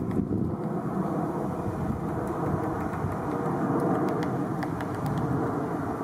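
Steady outdoor background rumble with a few faint ticks over it.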